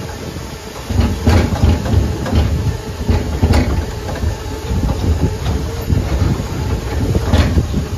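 Boardwalk tram car rolling along wooden planks: a steady, loud rumble with uneven clatter from its wheels over the boards, and a few sharper knocks.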